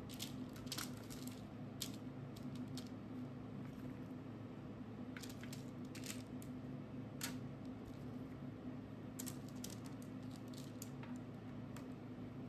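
Scattered light clicks and taps of small objects being handled, some in quick clusters, over a steady low hum.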